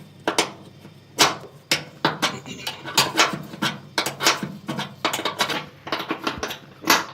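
Metal clinks and clicks of a 13 mm spanner working loose the shock absorber bolt on a Profilo washing machine, about two or three irregular strikes a second, with a louder clank about a second in and another near the end.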